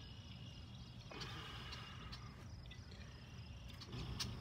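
Quiet outdoor ambience at a pond's edge: a faint steady high insect chorus over a low rumble, with a few soft clicks from handling the fish and hook.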